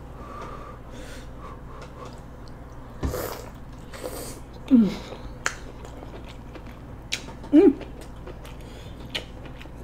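Mouth sounds of a person eating a too-hot bite of king crab meat: wet chewing clicks and smacks, sharp breaths blown out to cool the food, and two short wordless vocal sounds, the first falling in pitch, as the heat hits.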